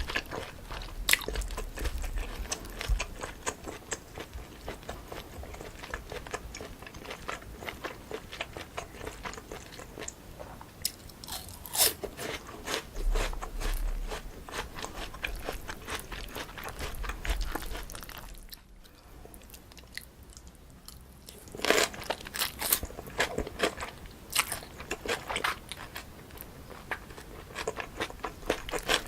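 Close-miked eating: chewing and crunching mouthfuls of chewy cold noodles with crisp raw vegetables and fruit, full of quick sharp crunches. There is a short lull about two-thirds of the way through, then a louder run of crunching.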